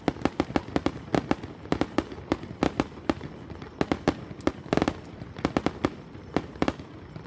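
Fireworks display going off in quick succession: sharp, irregular bangs and crackles, about four a second, thickest a little under two-thirds of the way through.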